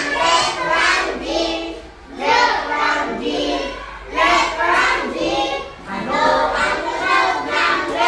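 A group of young children singing together in short phrases, with brief breaks between them.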